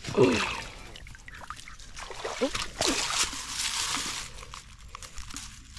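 A hand splashing and sloshing in shallow creek water while reaching in after a snapping turtle, with scattered rustling. A short voice-like sound that drops in pitch comes right at the start.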